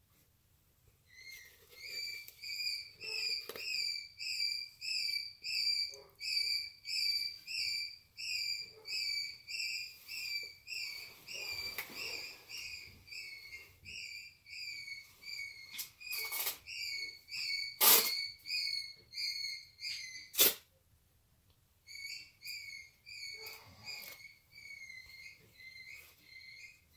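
Parrot calling over and over, a short shrill call repeated about twice a second without letup. A few sharp knocks come in between, the loudest about 18 seconds in. After about 20 seconds the calls break off for a second or two, then start again.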